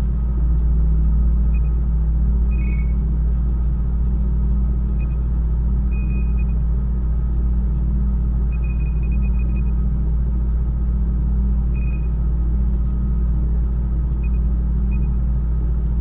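Sci-fi laboratory ambience sound effect: a steady deep machine hum with short, high electronic beeps and chirps scattered at irregular intervals over it.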